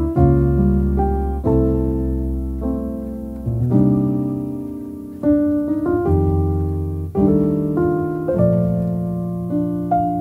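Background solo piano music: slow chords struck about once every second or two, each ringing out and fading.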